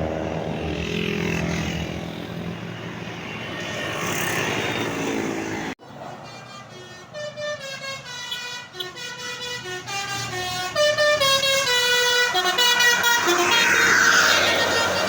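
A bus passing with its engine running, then, after a sudden break about halfway through, a bus's telolet (basuri) multi-tone horn playing a tune, note after note, growing louder toward the end as the bus draws near.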